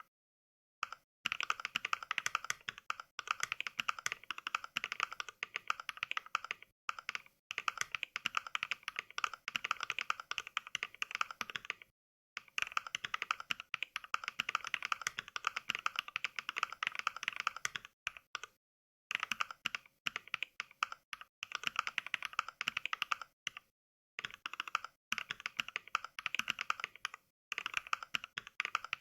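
Simulated mechanical keyboard typing: the Mechvibes app playing NK Cream switch samples for each keystroke. The clacks come in quick runs, broken by a few short pauses of dead silence.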